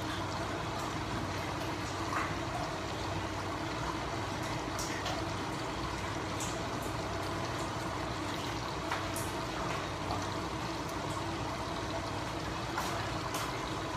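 Chopped tomatoes simmering in a covered frying pan on a lit gas burner: a steady low hiss and hum, with faint ticks now and then.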